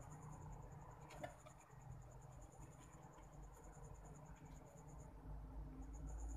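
Faint dabbing and scratching of a paintbrush working thick acrylic paint on a wood panel, with a few light taps about a second in. Behind it a high insect trill, like a cricket's, runs steadily and breaks off briefly near the end.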